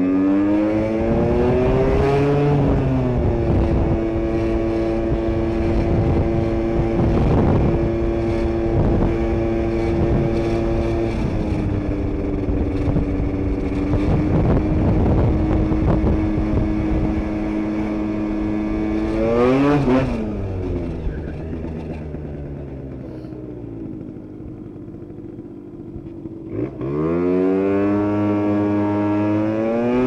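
Aprilia SR 125 two-stroke scooter engine with a 172 cc Malossi kit, running on an old worn drive belt that slips. It revs up at the start and holds steady revs for a long stretch while riding. About two-thirds through it gives a short rev peak, then drops to a quieter low-rev run before revving up sharply again near the end.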